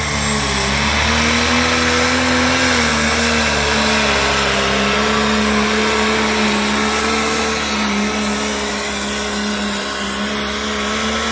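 Turbocharged diesel pulling tractor's engine running flat out under full load as it drags a weight sled, a loud, steady, high drone that dips briefly about half a second in and then holds.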